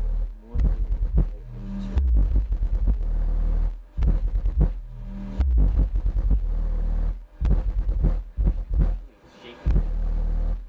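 Skar Audio VXF-12 D4 12-inch subwoofer playing a deep bass track hard at about 1,000 watts: long, low bass tones alternating with fast, chopped pulses and brief drop-outs.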